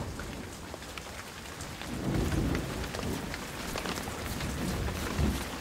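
Steady rain falling, with scattered drop ticks and low rumbles about two seconds in and again near the end.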